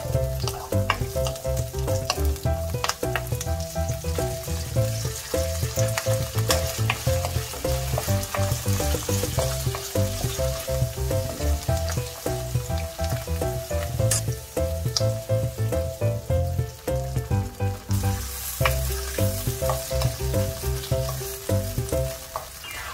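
Garlic scapes sizzling in hot oil in a nonstick wok, stirred with a wooden spatula that scrapes and taps against the pan.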